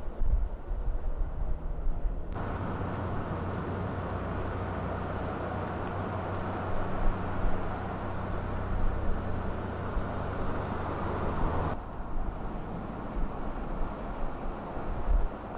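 Ford Ranger Raptor pickup driving at a steady speed on asphalt: a steady engine hum with tyre and road noise. The sound changes abruptly twice, about two seconds in and again near twelve seconds, becoming brighter in between.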